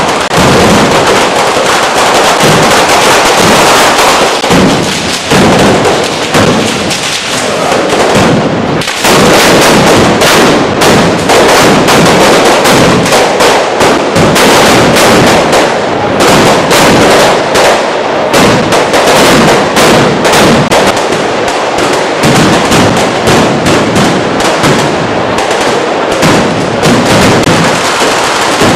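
Firecrackers going off in a loud, unbroken barrage of rapid bangs and crackling. About nine seconds in there is a brief dip, after which the bangs come as sharper, separate cracks in quick succession.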